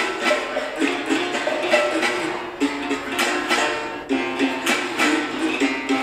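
Several berimbaus played together: steel wires struck with sticks in a steady rhythm that switches between two notes, with the caxixi rattles shaking along with the strokes. The stone is slid along the wire before striking to give the chiado, the buzzed berimbau stroke.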